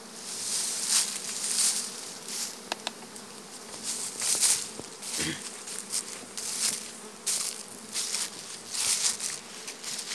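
Honeybees buzzing steadily in a low hum around open hives being worked, their frames lifted out. Loud scratchy rustles come and go about once a second over the hum.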